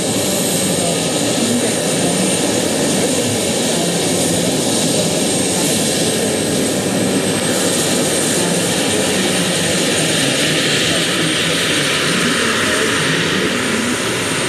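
Turbine engine and main rotor of a large radio-controlled Mil Mi-24 scale model helicopter (2.3 m rotor) running at power as it lifts off. A thin high turbine whine rises slightly in the first second and then holds steady over a loud, even rush of rotor noise.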